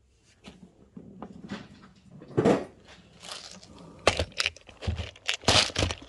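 Hands working a fuel line fitting into the spout of a red plastic gas can: irregular clicks, knocks and rustling of plastic, with a louder thump about two and a half seconds in and a cluster of sharp knocks near the end as the fitting goes home.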